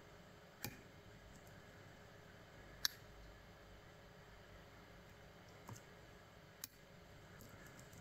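Faint, sharp clicks of a pick and tension tool working inside a brass cylinder lock's keyway, four distinct clicks with a few fainter ticks between, the loudest about three seconds in.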